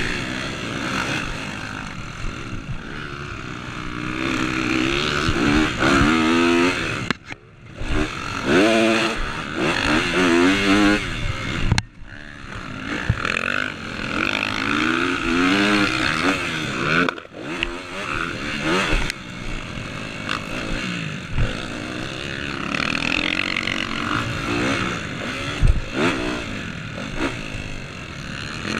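A Honda motocross bike's engine, heard from on the bike, revving hard and rising and falling in pitch through the gears. The throttle is chopped briefly a few times, the engine note dropping away about a quarter of the way in and again past the halfway point.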